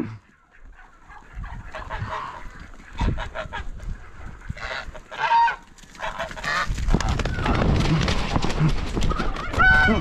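A flock of Chinese and African geese honking, with short honks about five seconds in and again near the end. From about seven seconds in, a loud rush of noise builds up under the honking.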